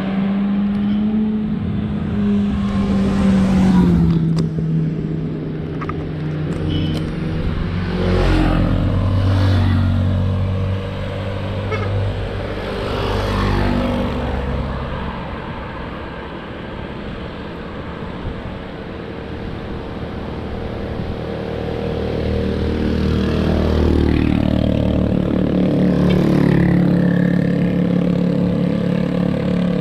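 Motor vehicle engines on the road, running steadily throughout, with several vehicles passing by, their pitch rising and falling as they go past.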